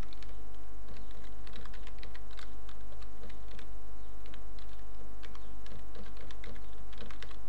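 Computer keyboard keys clicking in an irregular run of keystrokes as an email address is typed, over a steady low electrical hum.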